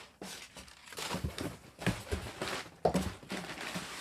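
Plastic food packaging rustling and crinkling as items are handled and taken out of a box, with a few short knocks.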